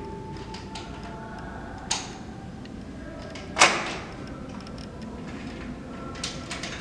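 A few sharp knocks over a low steady room hum: one about two seconds in, the loudest about a second and a half later with a short ringing tail, and lighter taps near the end.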